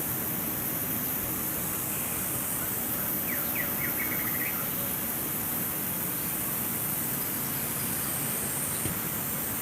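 Steady hiss with a faint, short bird call about three and a half seconds in: a few quick notes running into a rapid trill lasting about a second.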